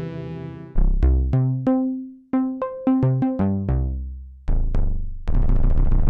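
Melbourne Instruments Nina hybrid wavetable and subtractive synthesizer playing a preset. A held chord fades out, then a run of short plucked notes over a bass line follows. About five seconds in, a denser, buzzing sustained sound starts.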